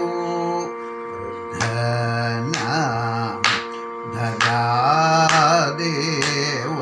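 A man singing a Kathakali padam in a slow, ornamented Carnatic style, his voice sliding and bending between notes over a steady drone. Sharp strikes keep the beat about once a second.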